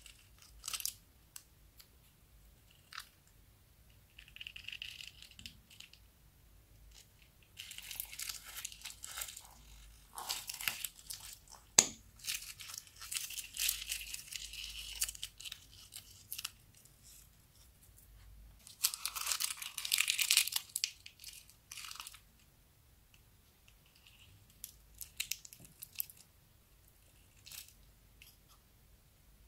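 Plastic piping bags crinkling as they are squeezed to empty glitter onto clear slime: intermittent bursts of crisp rustling and crackling with scattered small clicks, the longest bursts in the middle of the stretch.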